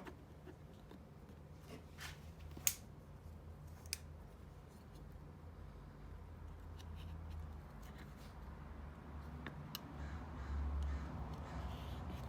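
A few sharp clicks of small metal parts being handled, the loudest a little under three seconds in, over a low steady hum.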